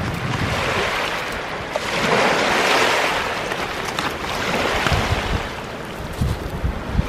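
Small sea waves washing onto a pebble shore, the wash swelling and fading twice, about two and five seconds in. A few low thumps near the end.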